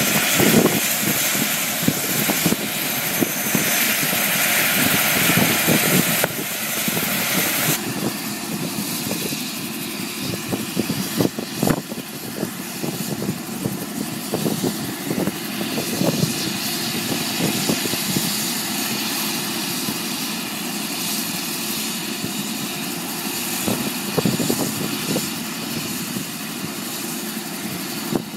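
Helicopter running with its main rotor turning, then lifting off and hovering. A steady engine and rotor noise with fast blade chop; a loud hiss over it stops suddenly about eight seconds in.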